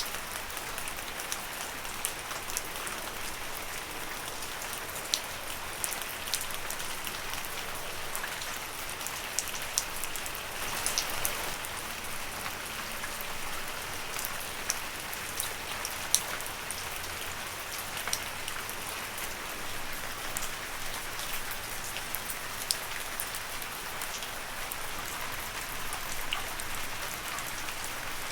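Steady rain falling on leaves, a continuous patter with many sharp single drops striking here and there.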